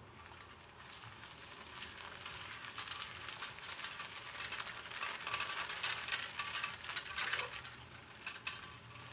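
Leaves and twigs rustling and crackling in dense undergrowth as someone moves through it: a dense crackle of small snaps that grows louder over the first few seconds, is loudest past the middle, then eases near the end.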